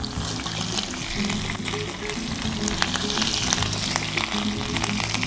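Whole shell-on shrimps sizzling in hot extra virgin olive oil in a skillet, a steady hiss with many small pops and crackles. Background music plays underneath.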